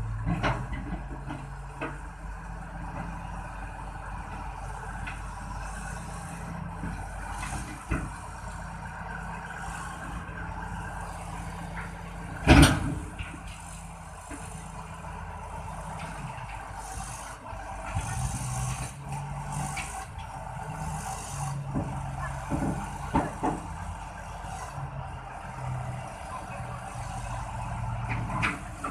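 Crawler bulldozer's diesel engine running as it drives up onto a lowboy trailer, with scattered metallic knocks and one loud clank about twelve seconds in.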